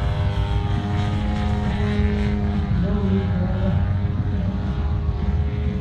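Engine and propeller of a 102-inch Apex Aerotech Slick 360 RC aerobatic plane running steadily at an even pitch.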